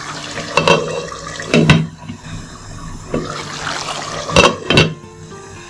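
Glass pot lid knocking against the rim of a frying pan about four times as it is set in place, over the steady sizzle of oily meat curry cooking in the pan.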